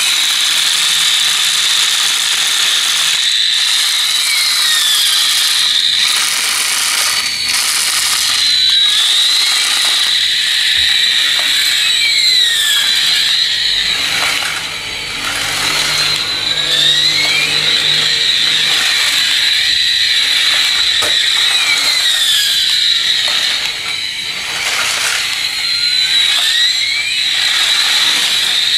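Battery-powered toy jumbo jet on a wired remote, running: a shrill high whine with swooping tones that rise and fall every few seconds, over the rattle of its small drive motor and plastic gears.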